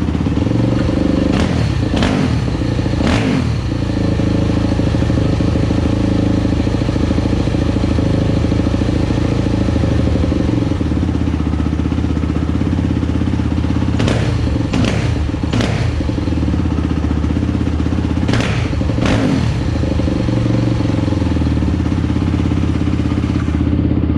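2001 Yamaha YZ426F's 426cc single-cylinder four-stroke engine idling warm without the choke, with a few quick throttle blips early on and several more later.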